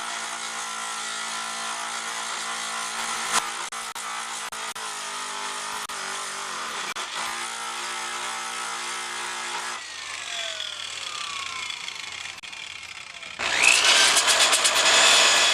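Electric grinder running steadily as it grinds the steel bicycle frame smooth where the pump brackets were cut off. About ten seconds in it winds down with a falling whine. Near the end a louder power tool spins up with a rising whine and runs hard against the metal.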